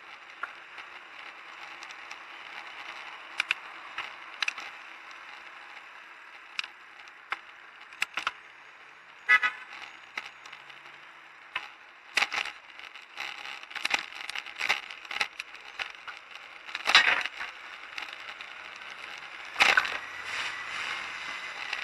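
Camera mount on a moving ride rattling and knocking over bumps in the pavement, with a steady rush of road and wind noise. The knocks come irregularly and get more frequent after about twelve seconds. A faint tone rises and falls near the end.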